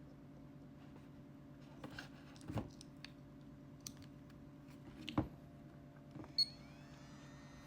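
A few separate clicks and knocks from plugging a battery connector into FPV goggles and handling them, with a short electronic beep about six seconds in, over a steady low hum.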